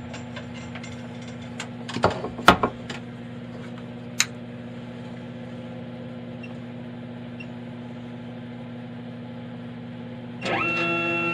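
A few light clicks and knocks as a CNC router touch plate is set in place, over a steady low hum. Guitar music comes in near the end.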